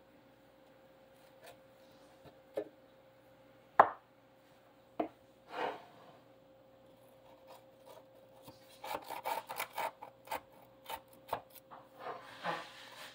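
Kitchen knife sawing down through a tray of baked slider rolls in a cast iron skillet, a rasping scrape with a few sharp knocks, the loudest about four seconds in. From about nine seconds in come quick runs of short sawing strokes, over a faint steady hum.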